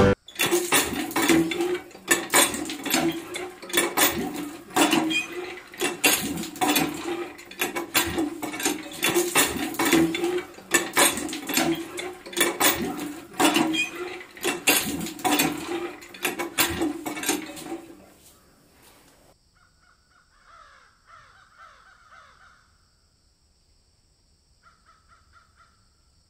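Birds calling: a loud, dense run of repeated calls for most of the stretch, which falls away after about eighteen seconds to two short groups of faint chirps.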